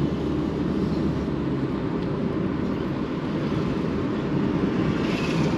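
Steady engine and tyre rumble of a car being driven, heard from inside the car. A low engine drone is steady for about the first second, then fades under the road noise.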